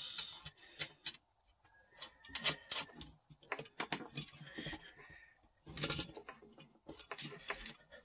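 Small metal nut and washer being threaded by hand onto an inverter's negative battery terminal stud, with the cable lug clicking against it: irregular light metallic clicks and rattles.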